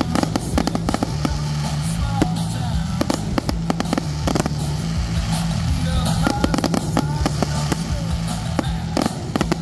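Aerial fireworks bursting in quick, irregular succession, with sharp bangs and crackling, over loud show music with a heavy bass line.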